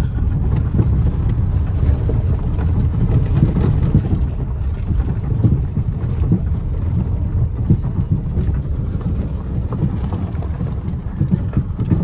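Steady low rumble of a car climbing a steep hill road, heard from inside the vehicle: engine and road noise, with some wind buffeting on the microphone.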